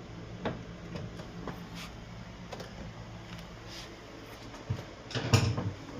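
Scattered light clicks and scrapes of hands working inside the opened drain pump of a front-load washing machine, trying to pull out debris jammed in it, with a louder scraping rustle about five seconds in. The jammed object is what stopped the pump draining and made it noisy.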